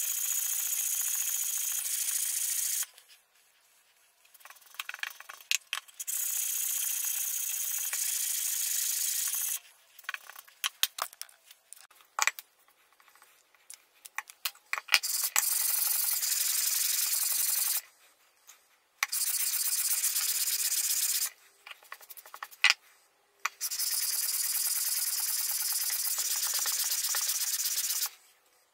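Metal hand-plane parts being lapped flat on sandpaper over a granite slab: five bouts of steady, fast back-and-forth scrubbing hiss, with short pauses of small clicks and knocks as the part is lifted and repositioned.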